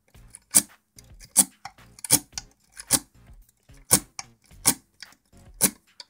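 Lock picking on a euro profile cylinder lock: sharp metallic clicks from the pick and tension wrench in the cylinder, about seven of them at a steady pace.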